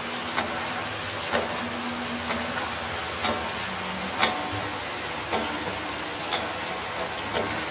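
Sweet potato chunks frying in oil and melted sugar in a stainless steel wok, a steady sizzle. A stirring utensil knocks against the wok about once a second.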